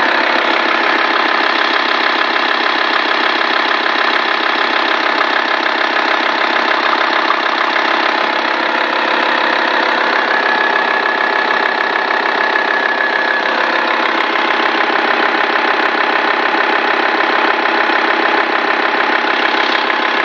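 Volkswagen 2.5 TDI inline five-cylinder diesel engine idling steadily from a cold start, with the oil filler cap off for a crankcase blowby check.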